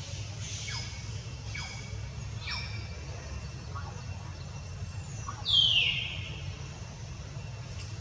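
High-pitched animal calls: three short chirps, each falling in pitch, then a single louder call sweeping down in pitch about five and a half seconds in, over a steady low rumble.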